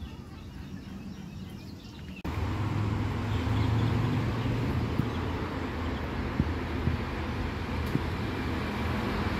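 Steady road traffic noise from cars driving on the road below, a continuous rush with a deep rumble that starts suddenly about two seconds in, after quieter outdoor background.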